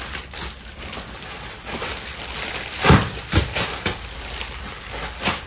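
Clear plastic packaging crinkling and rustling as a packed suit set is handled and unwrapped, with a few sharper crackles, the loudest about three seconds in and another near the end.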